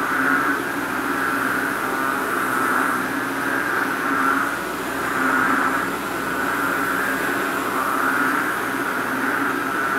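A chorus of banded bullfrogs (Kaloula pulchra) calling raucously, many overlapping calls merging into one continuous sound that rises and falls in waves every second or two. These are likely mating calls, given right after heavy rain.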